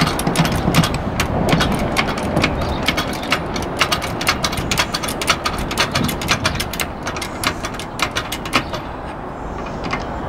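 Hydraulic trolley jack being pumped by its handle to raise a car: a quick, uneven run of clicks and rattles, several a second, stopping about nine seconds in.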